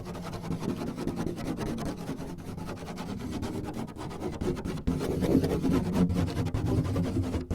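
Continuous scratching and rubbing on a surface by hand, a dense run of fine scraping strokes that grows louder about five seconds in.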